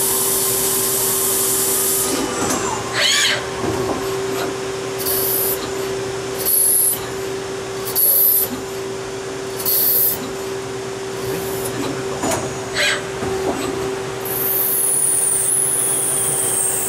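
AEGIS CNC lathe running a polygon-turning cycle: a steady machine hum, with short bursts of high-pitched cutting hiss every second or two, a few sharp clicks, and a falling high whine near the end.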